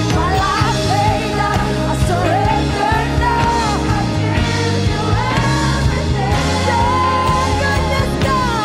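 Live worship band playing a slow rock-style song: electric bass, keyboard, electric guitar and drum kit, with a melody line that bends and glides above the steady bass notes.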